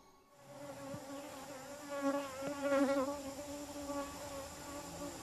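Flies buzzing: a wavering, pitched hum that fades in, swells and dips as they move about, loudest about two to three seconds in.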